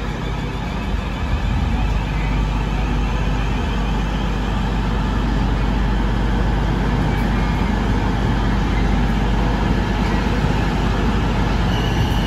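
South Western Railway Class 450 Desiro electric multiple unit departing past the platform, a steady run of traction motor hum and wheels on the rails as the coaches go by.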